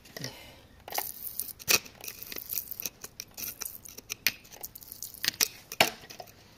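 Hand tool scraping and picking at gritty rock: irregular sharp clicks and gritty scrapes.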